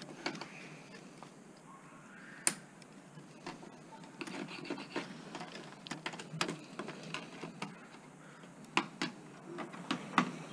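Scattered small clicks, taps and scraping of hand tools and metal and plastic parts as a DVD player is taken apart, with one sharper click about two and a half seconds in and a run of clicks near the end.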